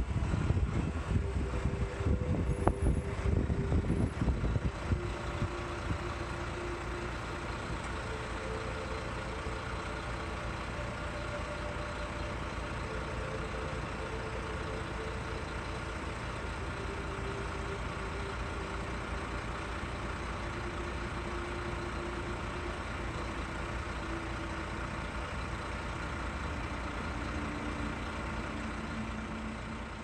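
Truck engine running, heard from inside the cab, with a louder, heavier rumble for the first five or six seconds, then a steady hum. It is loud enough that it could mask a helicopter's rotor blades.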